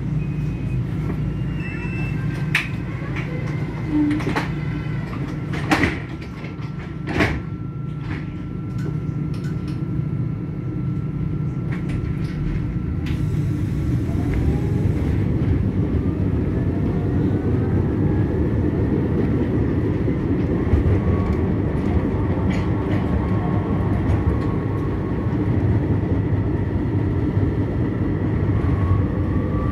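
Eurotram standing at a stop with a steady low hum and a few sharp clicks, then a short hiss before it pulls away. From about halfway in, its electric traction drive whines up in pitch as it accelerates along the track.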